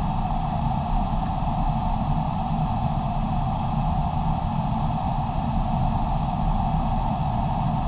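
Steady rushing noise of airflow and engines inside an airliner's flight deck on approach, with a low rumble beneath.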